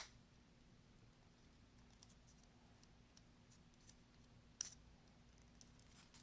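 Near silence with a few small, sharp clicks and taps of parts and tools being handled while a flex cable and connector are fitted inside a phone: one right at the start, another about four and a half seconds in, and fainter ticks between.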